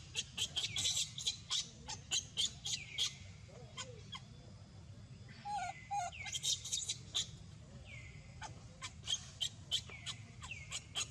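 A rapid, irregular series of short, high-pitched animal calls: chirps and squeaks, many of them falling in pitch, over a steady low rumble.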